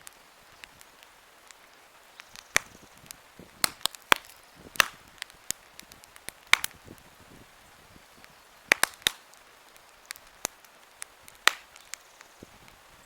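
Wood campfire crackling: irregular sharp pops and snaps, a few loud ones among many small crackles, over a faint steady hiss of the burning fire.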